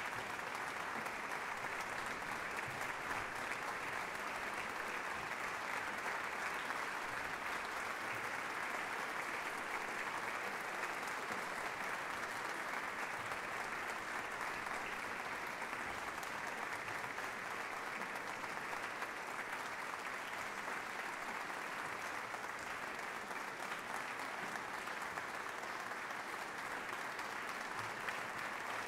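Audience applauding steadily without a break.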